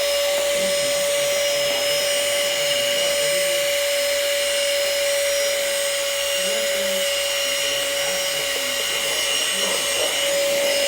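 XREXS cordless handheld vacuum cleaner running steadily: a constant motor whine over a rush of air.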